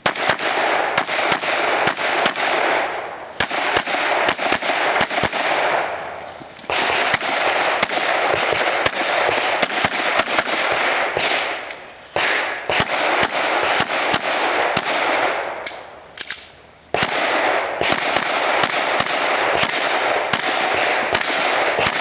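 Rapid handgun shots fired in strings during a timed practical-shooting stage run, many shots in quick succession. There are brief lulls about six, twelve and sixteen seconds in.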